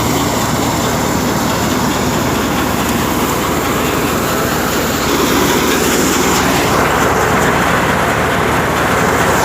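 Wheat-harvesting farm machinery running with a loud, steady mechanical clatter, getting a little louder about five seconds in.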